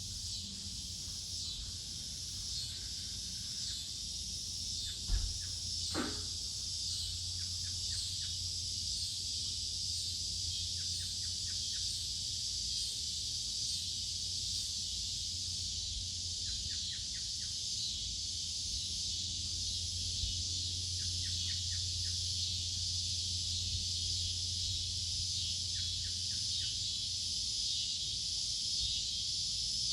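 Backyard ambience: a steady high insect drone with short bursts of bird chirps every few seconds over a low hum, and a single knock about five seconds in.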